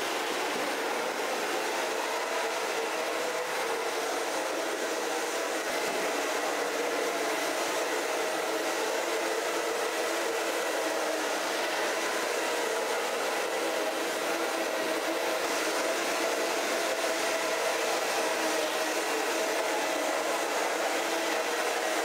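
LECAN R-43M wet floor scrubber running steadily, its suction motor and twin rotating scrub brushes giving a constant hum and hiss as it scrubs the floor and vacuums up the dirty water.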